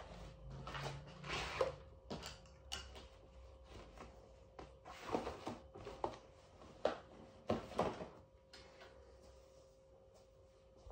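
Rustling and soft knocks of a canvas tote bag being handled and packed, in short scattered bursts, over a faint steady hum.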